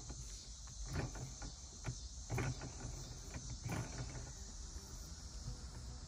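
A weighted shift knob being screwed by hand onto a manual gear lever: faint rubbing and a few soft, scattered clicks as it turns on the threads, over a steady faint hiss.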